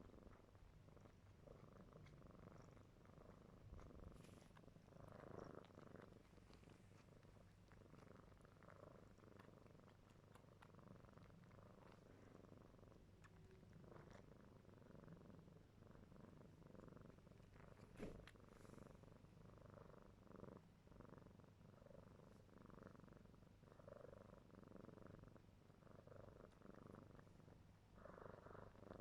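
A kitten purring faintly while it suckles on its own things, with small sucking clicks over the steady purr and one sharper click about two thirds of the way through.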